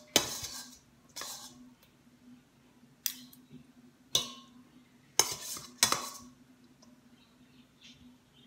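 A metal spoon and fork scraping and clinking against a stainless steel pot while scooping out stuffing: about six short scrapes in the first six seconds, then only faint taps.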